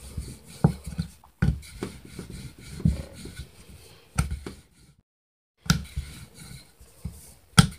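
Wooden rolling pin rolling out dough on a round wooden board: an uneven low rumbling, with several sharp knocks of pin and dough against the wood.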